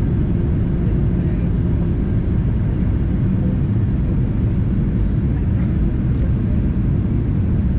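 Steady, low rumble of a Boeing 737-800's CFM56-7B jet engines and the airflow over the fuselage, heard inside the passenger cabin.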